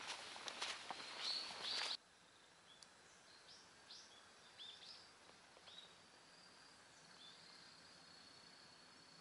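Footsteps on an asphalt road for about two seconds, then a sudden drop in level. After the drop, a few short falling bird chirps sound over a faint, steady, high insect trill.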